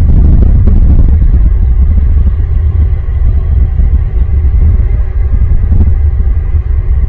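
A loud, steady low rumble, with a few faint clicks near the start.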